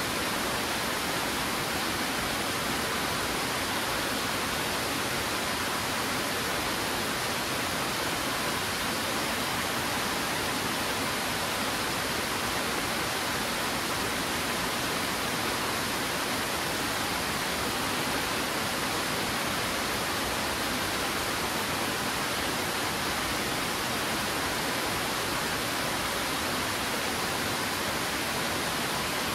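Twin Falls, a tall two-cascade waterfall, rushing steadily: an even, unbroken hiss of falling water, more bright than deep.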